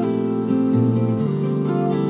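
Instrumental music from a song intro, led by acoustic guitar playing held chords.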